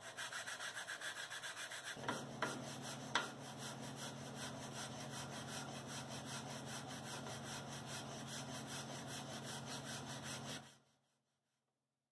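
Bubinga-and-beech wooden plane body being hand-sanded flat, rubbed back and forth on a sheet of sandpaper laid on a jointer table: an even rasping about three strokes a second. A few sharp knocks come between two and three seconds in, a low steady hum joins from about two seconds in, and all of it stops abruptly near the end.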